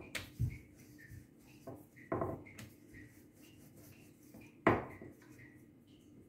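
Wooden rolling pin rolling dough thin on a stone counter: soft rubbing with a few knocks, the loudest about two-thirds of the way through.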